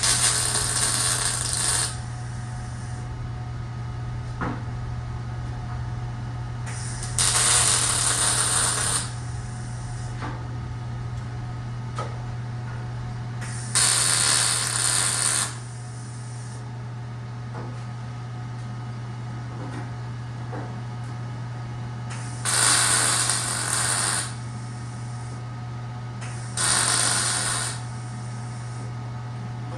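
Five short bursts of a grinder on steel tubing, each lasting one to two seconds, with gaps of several seconds between them, over a steady low hum. This is the work of grinding bar ends down to fit.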